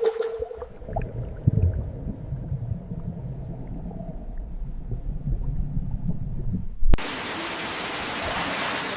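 Water at a waterfall: a low, muffled rumble with faint clicks for about seven seconds, then an abrupt switch to the steady full rush and hiss of falling water.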